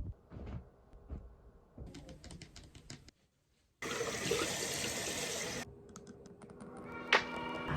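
A few light clicks and knocks, then a burst of running water for about two seconds that starts and stops abruptly. Music begins near the end.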